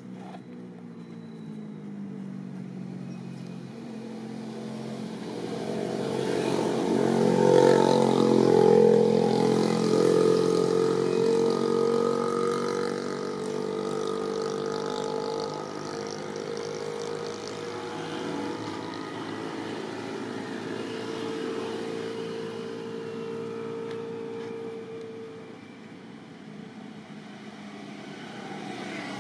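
A passing engine's drone: a stack of steady pitched tones that swells to its loudest about eight seconds in, drops in pitch as it goes by, then slowly fades while still lingering.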